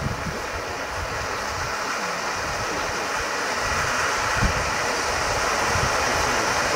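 Weco Feuerblumenvulkan firework fountain burning: a steady hissing rush of spraying sparks that grows gradually louder, with one brief thump about four and a half seconds in.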